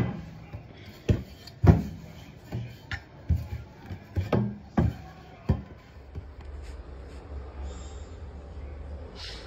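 A water bottle used as a rolling pin, knocking and rubbing on the counter as it rolls out flatbread dough: about nine irregular knocks over the first five and a half seconds. A low steady hum follows near the end.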